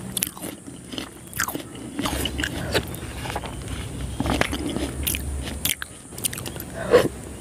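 Close-miked eating: chewing and wet mouth clicks, with a metal spoon scraping and clinking in a ceramic bowl of milky fruit custard. The clicks come irregularly, with a louder one near the end.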